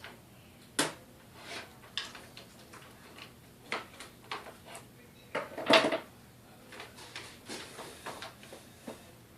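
Irregular knocks, clicks and clatter of things being handled and rummaged through, with a sharp knock about a second in and the loudest cluster of knocks a little past the middle.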